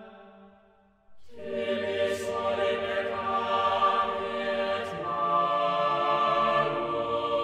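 Held, sung-sounding tones fade away in the first second, then choral music with sustained voices comes in abruptly and carries on loudly.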